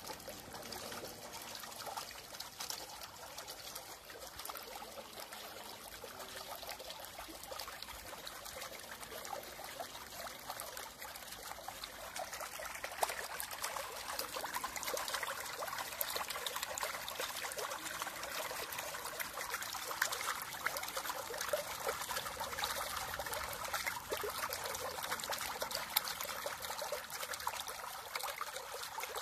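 Water trickling and splashing steadily, a little louder from about halfway through.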